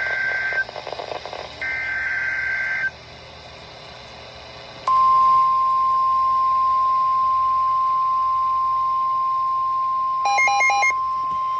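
NOAA Weather Radio EAS alert: two bursts of SAME digital header data, a two-tone warble about a second each, the first ending just after the start, then a two-second pause. Then the steady single-pitch 1050 Hz warning alarm tone comes on about five seconds in, signalling the start of a warning broadcast. Near the end a quick run of about four beeps sounds over the tone.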